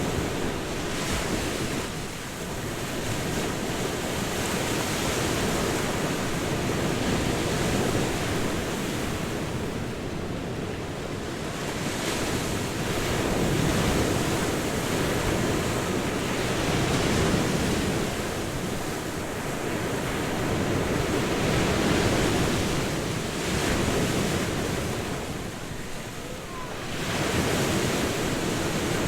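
Ocean waves breaking and washing on a shore in a steady, continuous wash that swells and eases every few seconds.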